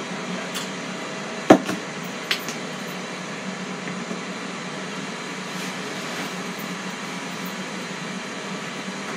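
Steady whirring hum of a fan or running appliance, with a sharp click about a second and a half in and a fainter click just under a second later.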